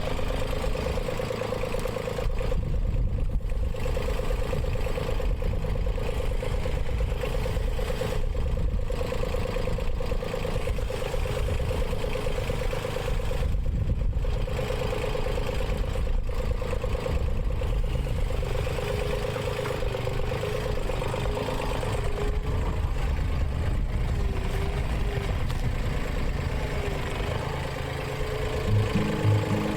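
Komatsu PC05-7 mini excavator's diesel engine running steadily while it digs, with a steady whine held throughout.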